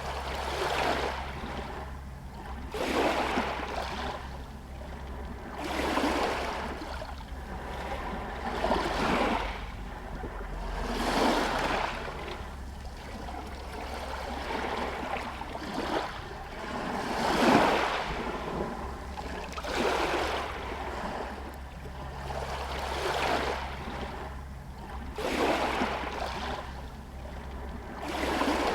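Small Adriatic Sea waves lapping against stones and a pier, a soft swelling wash about every two to three seconds, over a steady low rumble.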